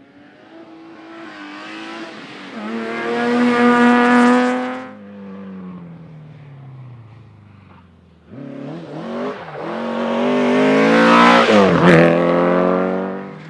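Rally car engines at full throttle as two cars pass one after the other. The first climbs in pitch, is loudest about four seconds in, then falls away. After a short lull a second car comes through with its revs rising and dropping, loudest near the end.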